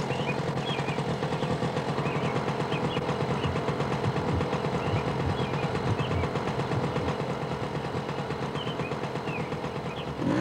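Moped engine idling with a fast, even putter.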